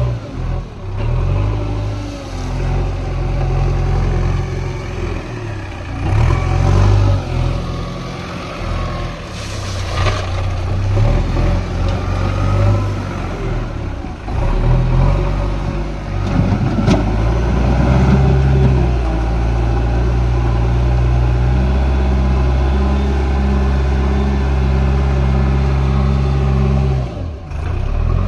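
Diesel engine of a JCB backhoe loader running and revving as it works, with stretches of scraping and clatter.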